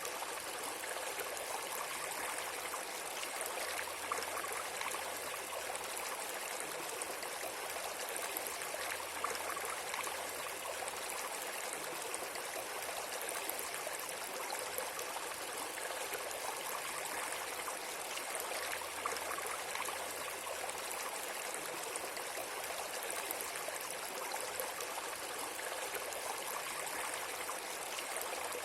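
Steady flowing water, an even rushing hiss like a stream.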